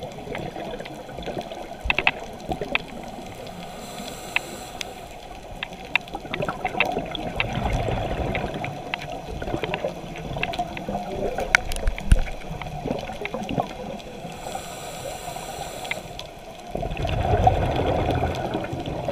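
Underwater sound through a diver's camera: a steady muffled water rush with many scattered sharp clicks, two brief hisses, and a louder bubbling rumble near the end as the diver exhales through a scuba regulator.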